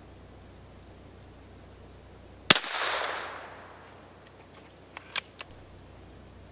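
Daisy VL rifle firing a single .22 caseless round: one sharp crack about two and a half seconds in, followed by about a second of echo dying away. About two and a half seconds later come three short clicks as the rifle is handled after the shot.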